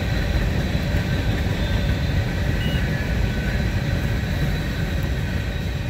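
Wind buffeting the microphone in an open field: a steady low rumble that fluctuates and drowns out most other sound.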